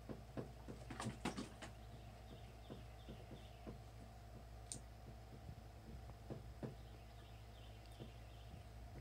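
Fillet knife clicking and tapping against a sheet-metal cleaning table while trimming flathead catfish fillets, with a few louder clicks about a second in and scattered lighter taps after.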